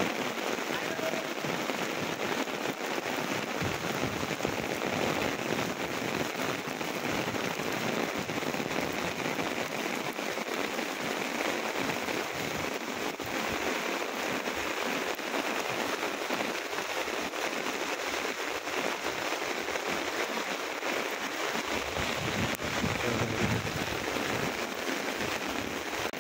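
Heavy rain falling steadily, pattering on standing floodwater and paving.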